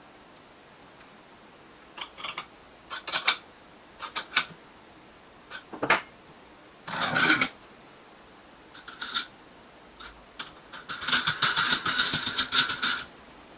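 A series of sharp clicks and knocks, a brief rattling burst in the middle, then a dense run of rapid clicking lasting about two seconds near the end.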